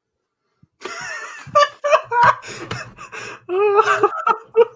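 A person's voice laughing, starting about a second in after near silence.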